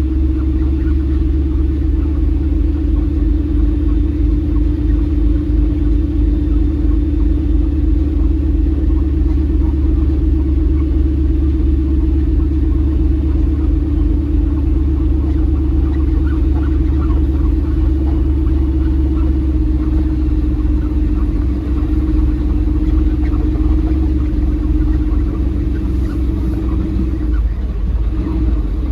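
Semi truck's diesel engine running with a steady low drone, heard from the cab as the truck moves slowly around the delivery yard.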